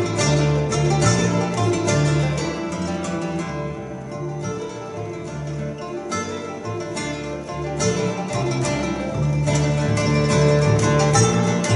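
Mandolin, acoustic guitar and double bass playing an instrumental piece together, a steady stream of plucked notes over low bass notes. The playing drops quieter a few seconds in and swells back up about eight seconds in.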